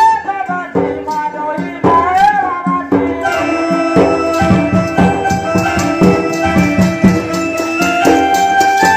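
Odia Danda Nacha folk music: a sung line over drums for the first couple of seconds, then an electronic organ holding steady chords over a fast, busy beat on dhol, nisan and tasa drums.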